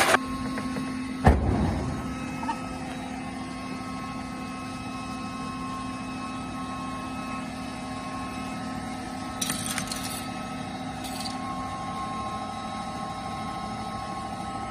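PCB component dismantling machine running, its drum motor giving a steady hum with several held tones. A loud, heavy thump about a second in, and a few light clicks near the end.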